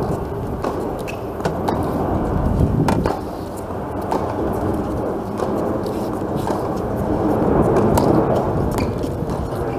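Tennis rackets striking the ball during a rally, several sharp pops spaced a second or two apart, over a louder steady low rumble of wind buffeting the microphone.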